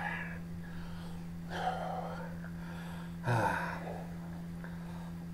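A man gasping and breathing hard through his open mouth, two loud sudden breaths, from the burn of an extremely hot chili sauce on his tongue and teeth.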